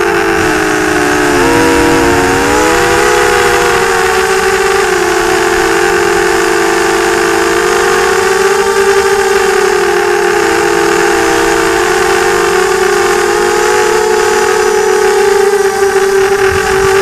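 FPV quadcopter's motors and propellers whining, heard through the onboard camera. The pitch drops and wobbles about two seconds in, then holds fairly steady with slight wavering as the throttle changes.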